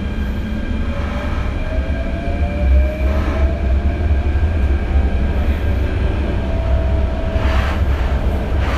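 Hyundai Rotem K-Train electric multiple unit heard from inside the carriage, running with a steady low rumble. A thin traction-motor whine rises slowly in pitch over the first few seconds, then holds steady.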